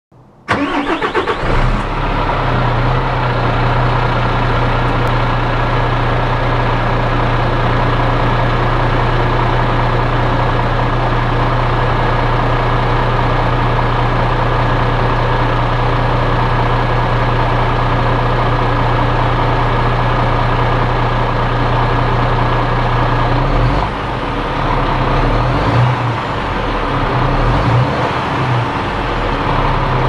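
MAN Lion's Coach Euro 6 coach's inline-six diesel engine, heard from outside, cranking and catching about half a second in, then settling into a steady idle with a deep hum. For a few seconds near the end the idle note wavers unevenly before steadying again.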